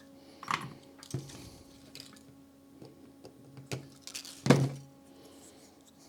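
A few sharp knocks and clicks of small parts and tools being handled on a workbench during soldering, the loudest about four and a half seconds in, over a faint steady hum.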